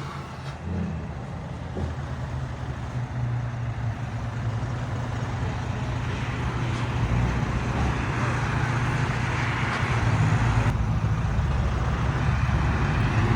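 Volvo FH truck's diesel engine with an aftermarket crackle ('estralador') exhaust running, its engine note growing steadily louder as the truck comes back toward the microphone.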